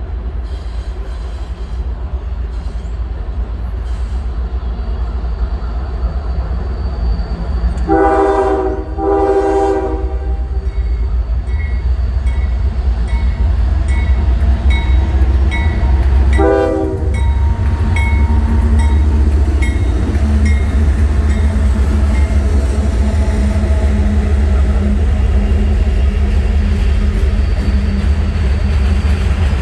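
Diesel freight locomotives approaching and passing with a deep engine rumble that builds throughout. The air horn sounds two blasts close together about a third of the way in and one short blast a little past the middle. A locomotive bell rings about twice a second for some ten seconds, and near the end the freight cars roll past.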